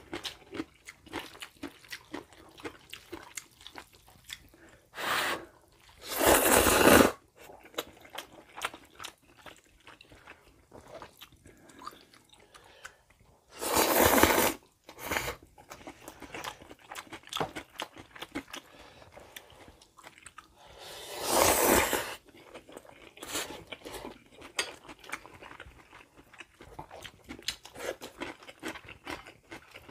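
Close-up eating of jjapaghetti black-bean noodles with wooden chopsticks from porcelain bowls: steady chewing with small clicks and taps. Three loud noodle slurps, each about a second long, come at roughly 6, 14 and 21 seconds.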